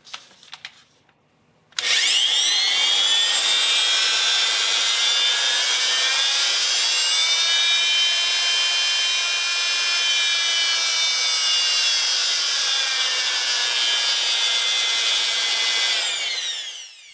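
Chicago Electric 67537 oscillating multi-tool switched on after a few small clicks: its motor spins up quickly to a high-pitched whine with a buzz and runs steadily for about fourteen seconds, then winds down with falling pitch. It is running again on new carbon brushes after it had seemed dead.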